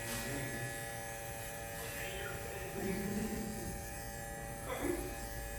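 Babyliss Pro FX cordless electric hair clipper running with a steady buzz during a haircut.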